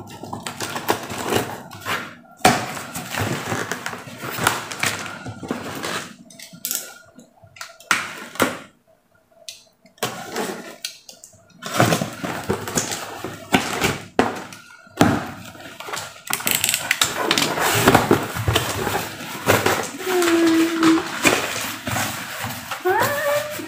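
A cardboard shipping box being opened: a box cutter slitting the packing tape and the tape pulled away in irregular scraping strokes, with a pause partway through. Then the flaps are folded back and paper packing rustles continuously in the last several seconds.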